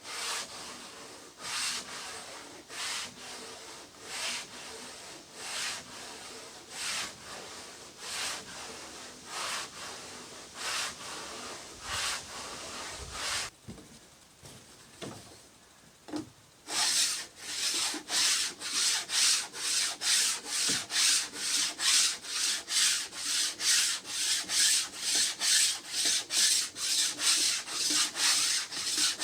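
Wood being sanded by hand in back-and-forth strokes. The strokes come slowly at first, about one every second and a half. After a pause of about three seconds they come quicker and louder, about two a second.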